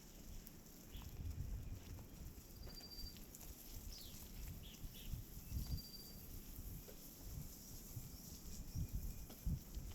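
Forest ambience with a few short, faint bird chirps and whistles over a steady high hiss, and irregular low thuds of footsteps on a path.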